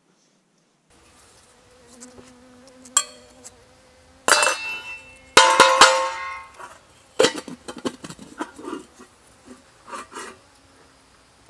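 Metal camp cook pot being scrubbed with sand and knocked against the ground to empty and dust it out: a series of scrapes and knocks, with the pot ringing, loudest in the middle. A faint steady hum runs underneath.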